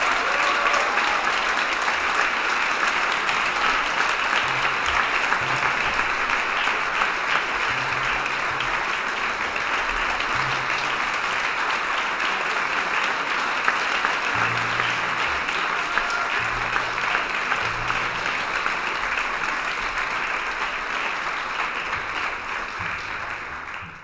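Concert audience applauding steadily, easing off slightly near the end before cutting off abruptly.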